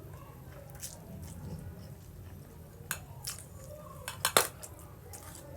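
Cutlery clinking against a plate while eating spaghetti: a few sharp clicks, with the loudest cluster about four seconds in.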